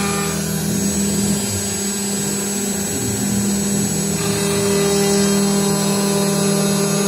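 CNC router spindle running at a steady pitch while a milling cutter face-mills the surface of an aluminium plate, the rough cutting noise riding on the spindle's even tone.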